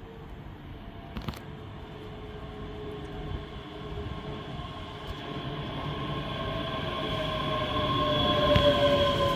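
A ScotRail Class 380 electric multiple unit approaching along the platform, growing steadily louder as it nears, with a steady whine over the rumble of its wheels on the rails.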